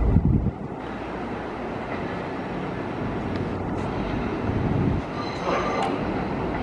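New York City subway train running on the tracks, with a heavy low rumble in the first second, then steady running noise. About five seconds in, a thin high squeal and a few sharp clicks come in over it.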